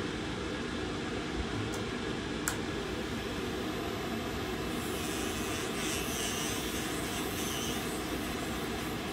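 Sunflower II nail dust collector's suction fan running steadily. From about five seconds in, an electric nail drill grinding acrylic or gel off a fingernail adds a higher, wavering grinding hiss on top.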